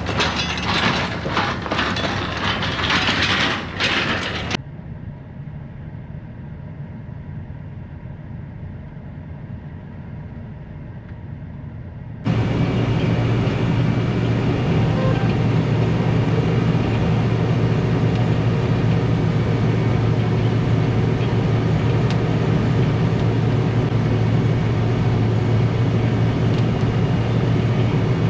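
Heavy farm vehicle engine running, in abruptly cut segments: a loud rattling stretch that cuts off after about four and a half seconds, a quieter stretch, then from about twelve seconds a loud, steady low engine drone.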